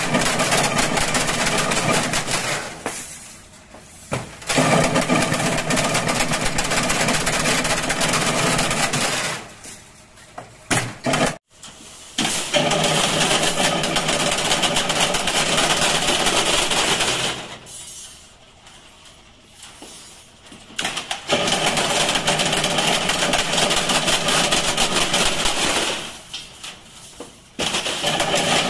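Chain-link fence weaving machine running as it weaves wire into mesh, with a steady hum that runs for about five seconds at a time and drops away for pauses of one to three seconds between cycles.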